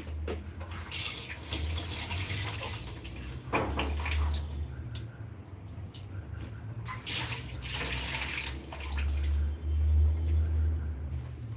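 Water running in several spells of hiss, starting and stopping, over a steady low hum.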